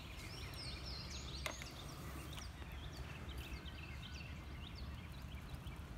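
Small birds chirping and calling repeatedly over a steady low rumble, with one sharp click about a second and a half in.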